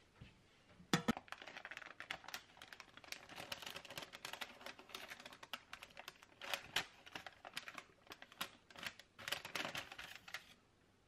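Baking parchment crinkling and rustling under the hands as it is lifted to roll up a cream-filled sponge cake, with a knock about a second in. The crinkling stops shortly before the end.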